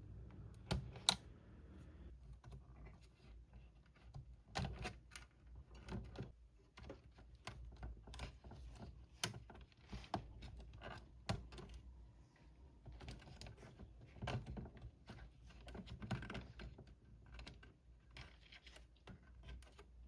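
Irregular light clicks and taps of small tools and parts being handled as an electronic device with an LCD screen is taken apart, with a few sharper knocks among them.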